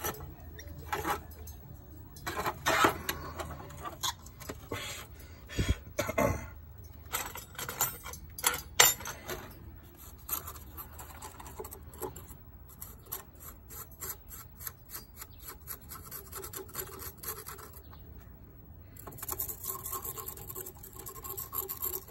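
Small metal tools, pliers and a pointed pick, clicking, tapping and scraping against a freshly cast silver piece and the metal sheet pan as casting sand is picked off it. Irregular sharp clicks and knocks, quicker lighter ticking midway, and a stretch of steady scraping near the end.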